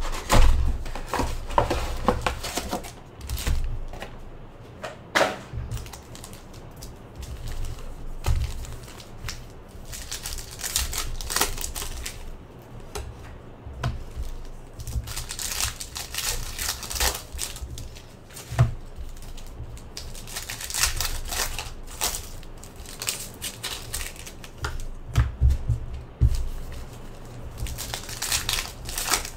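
Trading card packs being torn open and the cards handled: crinkling and tearing of pack wrappers in several bouts, with irregular clicks and taps of cards being flicked and set down.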